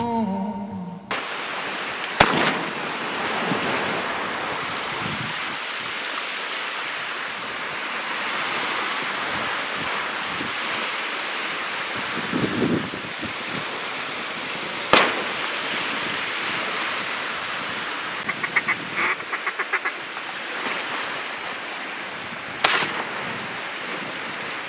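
Steady wind and choppy water washing against the microphone. About three-quarters of the way in comes a quick run of duck quacks. Three sharp cracks stand out, one near the start, one in the middle and one near the end.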